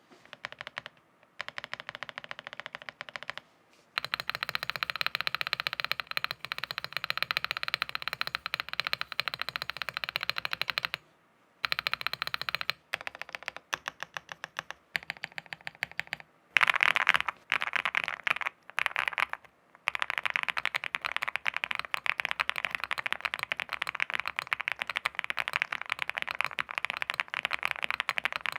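Meletrix Zoom TKL DYNA custom keyboard being typed on, with fast runs of key clicks broken by short pauses and then steady typing through the last several seconds.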